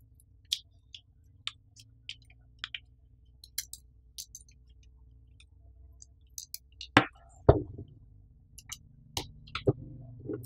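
Hands handling a plastic webcam, its cable and mini tripod: scattered light clicks and small rattles, then two louder knocks about seven seconds in and a few more clicks and knocks near the end.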